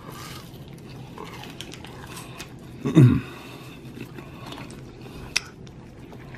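A person eating, with quiet chewing and a short, low 'mm' of enjoyment about three seconds in that falls in pitch, and a single sharp click near the end.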